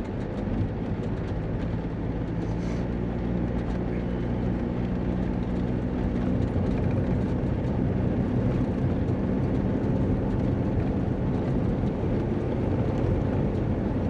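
Vehicle engine running steadily under road and tyre noise while driving along.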